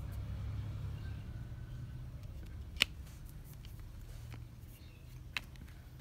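A few sharp plastic clicks as the washing machine's plastic control-panel casing is pressed and handled, the loudest about three seconds in, over a steady low hum.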